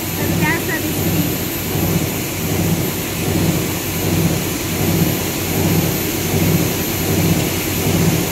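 Meltblown fabric production line running: a steady, loud roar of machinery and rushing air, with a low throb that pulses about one and a half times a second.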